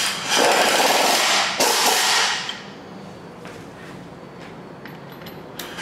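Pneumatic impact wrench running in two quick bursts over about two seconds, hammering an M10 engine-stand adapter bolt tight into the engine block.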